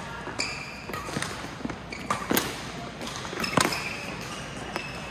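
Badminton rally: rackets striking the shuttlecock in sharp cracks, the two loudest about 2.3 and 3.6 seconds in, with lighter hits and short shoe squeaks on the court between them, in a reverberant hall.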